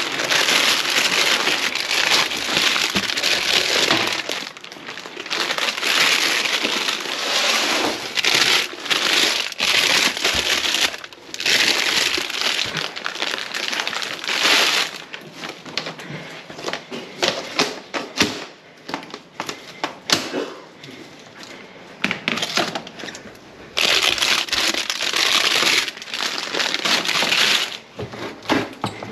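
Plastic-sleeved net bags of potatoes rustling and crinkling as they are rummaged through and lifted out of a bin. The crinkling comes in several loud stretches of a few seconds, with quieter clicks and knocks between.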